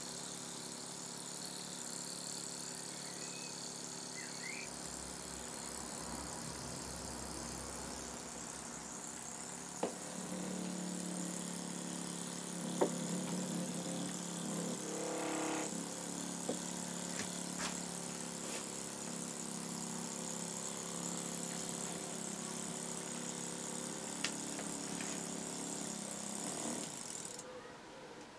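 Model Wig-Wag engine running steadily on compressed air: a constant hiss of escaping air over a low, even hum, with a few light clicks and knocks from brass parts on the bench. The air hiss cuts off suddenly shortly before the end.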